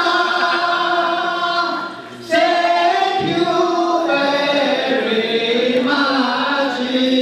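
A group of voices singing together in long held notes, like a choir or chant, with a short break a little after two seconds in before the next phrase.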